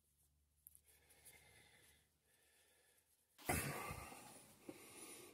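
Faint rubbing on the workbench, then about three and a half seconds in a sudden louder burst of handling noise that fades away over a second or two.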